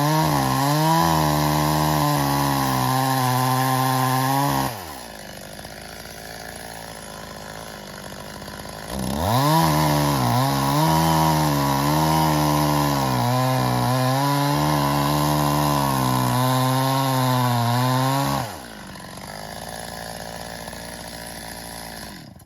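Stihl MS 270 two-stroke chainsaw at full throttle cutting through birch logs, its engine pitch wavering under load. It drops back to idle about five seconds in. About nine seconds in it revs up and cuts again for about nine seconds, then falls back to idle, and the sound cuts off suddenly just before the end.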